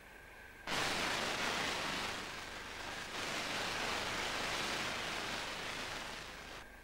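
A hiss of static starts suddenly about a second in, sags briefly, swells again and cuts off near the end: noise on the soundtrack of a degraded videotape transmission.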